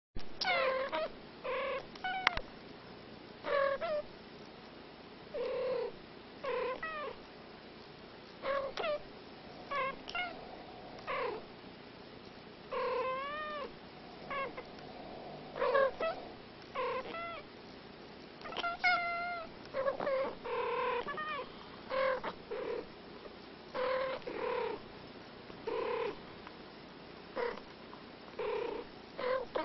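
Two domestic cats trading short, chirping, purr-like meows back and forth, about one call a second. Each call bends up or down in pitch, with irregular gaps between them like a conversation.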